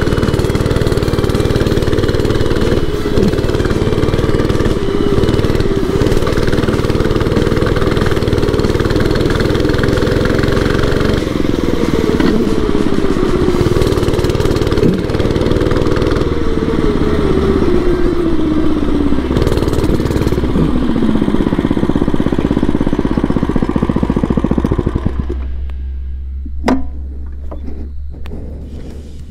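Oryxearth 105cc mini bike's small four-stroke single-cylinder engine running as the bike is ridden. Its pitch falls through the middle as the bike slows, and near the end it drops to a quieter, low idle.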